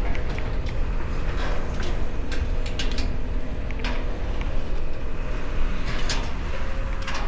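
Wind buffeting the microphone with a steady low rumble, and scattered sharp metal knocks and clinks from climbing the crane.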